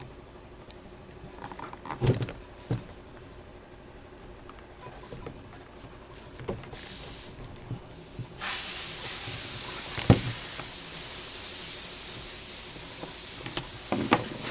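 A few light knocks and clicks as a razor knife is worked along the end of a rubber step tread on an aluminum running board. About eight seconds in a loud, steady hiss sets in and stays.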